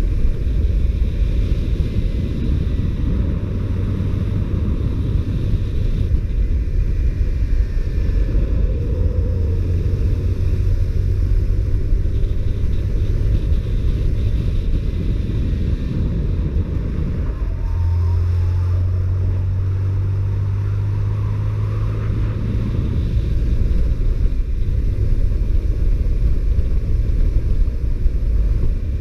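Honda CBR125R single-cylinder 125 cc four-stroke engine running on its stock exhaust as the bike is ridden, with wind noise on the microphone. The engine note holds steady for a few seconds past the middle.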